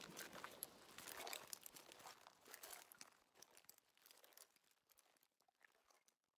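Faint crunching and crackling of footsteps through dry crop stubble, fading out over the last couple of seconds.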